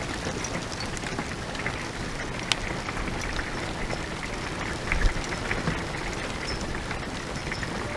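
Hail and rain falling steadily on an RV and its roof solar panels: a continuous hiss with many scattered sharp ticks of hailstones striking. One sharper click comes about two and a half seconds in, and a dull thump about five seconds in.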